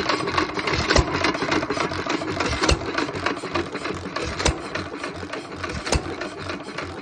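Antique hit-and-miss engine driving an air compressor. It fires with a sharp beat about every one and a half to two seconds, four times, and coasts between firings with a fast mechanical clatter.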